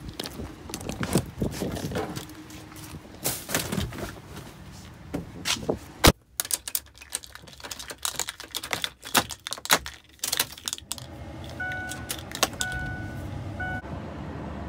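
Close handling noise of a phone being fumbled and set up inside a car: irregular clicks, rattles and knocks, with one sharp knock about six seconds in. Near the end a car's electronic chime beeps a few times and a low steady hum starts.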